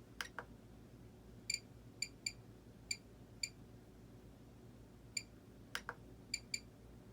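Short, high electronic beeps, about eight of them at irregular intervals, with two pairs of sharp clicks: the button beeps and switch clicks of an RC radio transmitter as its channel settings are stepped through.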